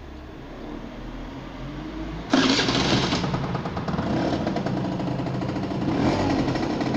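Peugeot scooter engine cranking for about two seconds, then catching suddenly and running on, with a newly fitted exhaust being checked for leaks.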